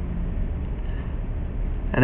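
Steady low hum and rumble of the recording's background noise, with faint hiss and no distinct event.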